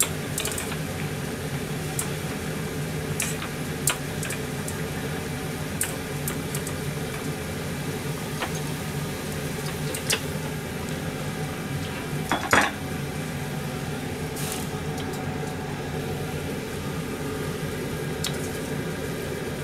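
A frying pan of nimono (vegetables simmering in stock) bubbling steadily at a full boil on a gas stove, with scattered light clinks of metal bowls and utensils and one louder clatter about twelve and a half seconds in.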